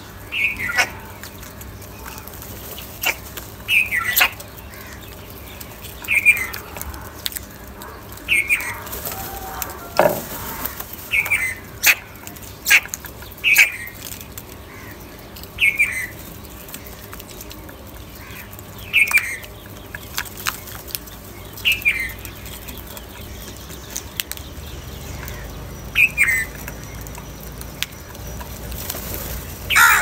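House crows calling with short, falling caws, one every two or three seconds, while the flock feeds. Sharp clicks and taps come in between.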